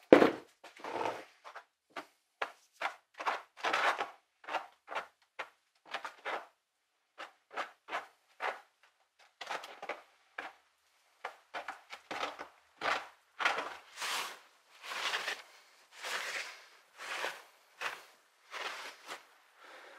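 A knock as a plastic bucket is set down, then a long run of short scraping strokes, about two a second, as epoxy filler is stirred and scooped out of a plastic tub with a wooden stick.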